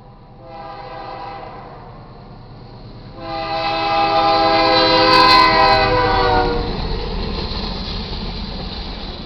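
BNSF C44-9W diesel locomotive's air horn sounding a short blast and then a long, loud blast at a grade crossing, the pitch dropping near the end of the long blast as the locomotive passes. It is followed by the low rumble of the autorack cars rolling over the crossing.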